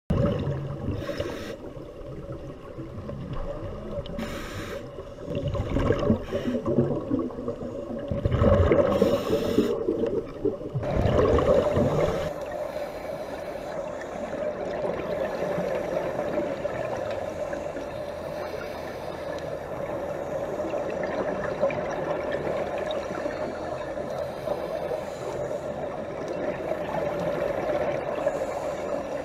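Underwater sound picked up by a diver's camera: gurgling bursts of exhaled regulator bubbles a few seconds apart for the first dozen seconds, then a steady underwater hum with a constant tone.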